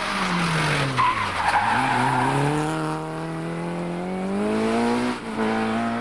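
Peugeot 306 Rallye rally car taking a bend at racing speed. The engine revs drop as it brakes in, the tyres squeal about a second in, then the engine climbs steadily as it accelerates away, with one gear change near the end.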